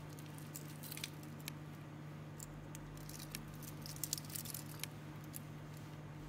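Faint scattered clicks and small metallic ticks of a stainless steel watch bracelet and its fold-over clasp being handled by fingers, a few more together around four seconds in, over a steady low hum.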